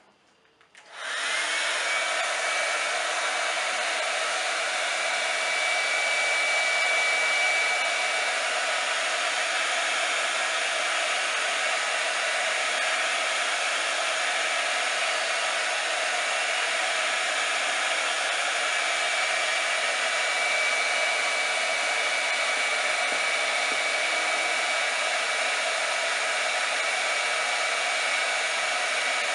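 Small hand-held hot-air blower switches on about a second in and runs steadily, with a faint high whistle over its rush of air at times. It is heating a cigar-box label to soften the glue so the label can be peeled off.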